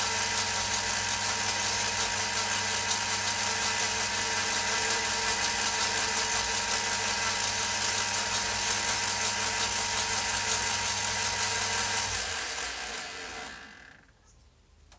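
Vintage metal lathe running steadily, its motor and gearing giving a constant hum with a held whine over a broad hiss. About twelve seconds in it is switched off and runs down, falling quiet about two seconds later as the chuck stops.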